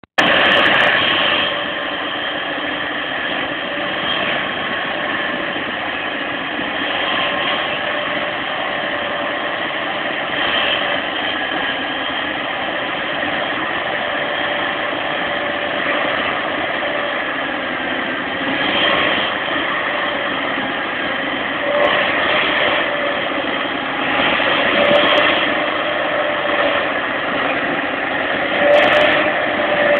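Fendt 930 tractor's six-cylinder diesel engine working at full power, driving an AHWI RF800 forestry spading machine that churns through the soil 40 cm deep. The engine and spader make a steady, loud mechanical din that swells louder several times in the second half.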